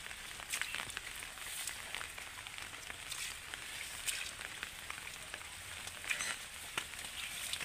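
Light rain pattering on wet foliage: a steady soft hiss with scattered drip-like ticks.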